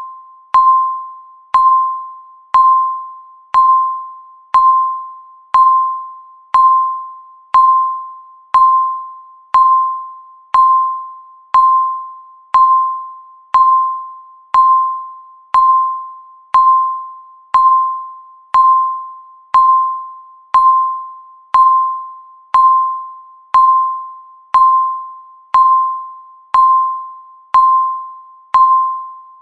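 Digital countdown timer beeping once a second to mark each passing second: a single mid-pitched electronic ding that starts sharply and fades away before the next one.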